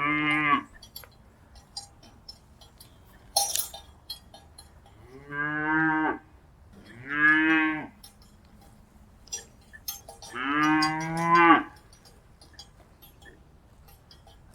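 Cattle mooing: four moos, each roughly a second long, with scattered light clinks between them.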